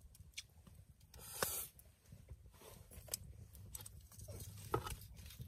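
Wood campfire crackling with scattered sharp pops, and a brief rustling hiss about a second and a half in. Near the end a stick of firewood is pushed into the fire with a knock.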